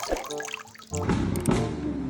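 Background music with water running and splashing, as a muddy toy car is rinsed. The water gets louder about a second in.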